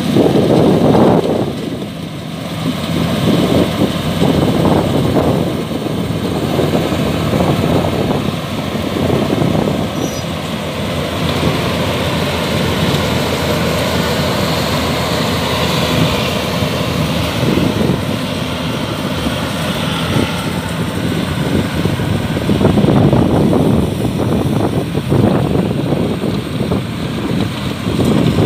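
Yanmar AW82V crawler combine harvester running under load while harvesting rice: a steady engine note blended with the churning of its cutter and threshing drum.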